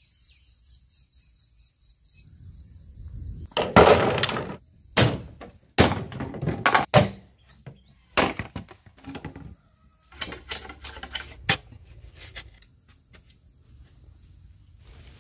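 A run of irregular sharp cracks, snaps and knocks, loudest about four seconds in, over a faint high pulsing trill like an insect's in the first couple of seconds.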